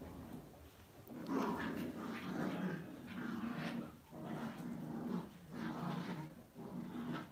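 Lhasa Apso growling low, in a run of rough bursts about a second long with short breaks between them.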